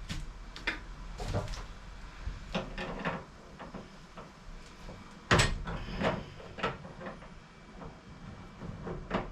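Irregular knocks and clunks of hand work on a tight copper propane line and its fitting inside a wooden cabinet, with one sharp, loud knock about five seconds in.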